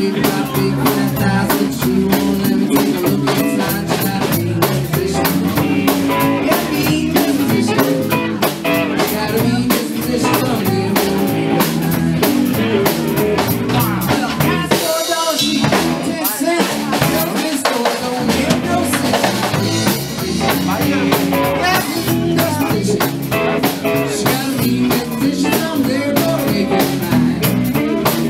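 Live blues band playing: two electric guitars over a drum kit with a steady beat. The low end drops out briefly about halfway through.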